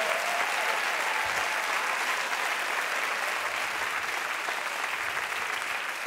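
Studio audience applauding steadily, slowly dying down.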